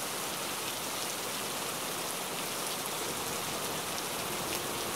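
Steady rain falling, an even hiss that holds without change.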